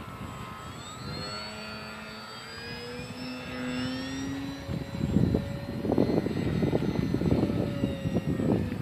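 ParkZone Visionaire RC plane's electric motor and propeller whining overhead, the pitch gliding up and down with throttle changes. From about five seconds in, a louder rough rumbling noise covers it.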